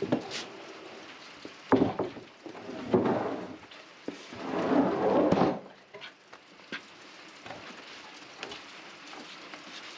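Wood-Mizer LT15 band sawmill blade cutting through a hard maple log: an uneven crackling hiss that swells and fades several times, with scattered clicks. The blade is dull enough that the sawyer thinks it is due for a change.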